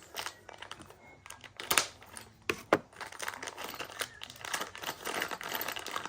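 Plastic packaging of crimp terminals crinkling as it is opened and handled, with a couple of sharp clicks.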